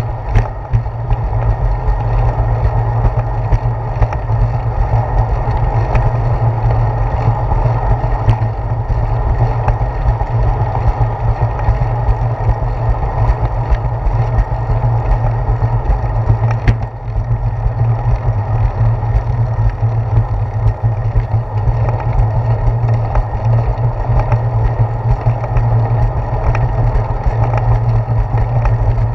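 Steady low rumble of wind and road vibration picked up by a handlebar-mounted GoPro Hero 4 on a bicycle rolling along a concrete path, with a few sharp knocks as the wheels cross the joints between the slabs.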